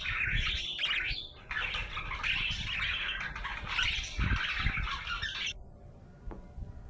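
Budgerigar chattering and warbling in a fast, continuous stream of chirps. It pauses briefly just over a second in and stops abruptly about five and a half seconds in.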